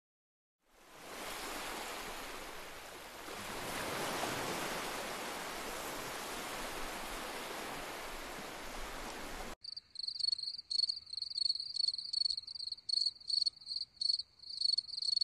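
Ocean surf washing steadily, fading in about a second in. About ten seconds in it cuts abruptly to crickets chirping, a high trill in short bursts about two or three times a second.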